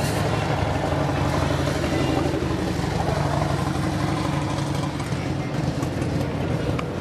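Boss Hoss motorcycle's 632 cubic-inch big-block Chevrolet V8 idling steadily.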